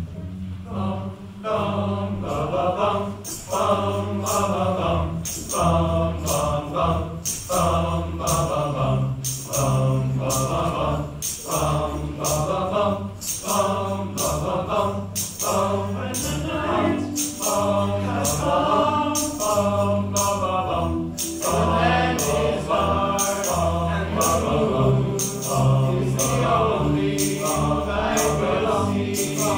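Choir of boys' and men's voices singing in parts over a low, repeating bass line, with a steady percussion beat of short high hits a little over once a second.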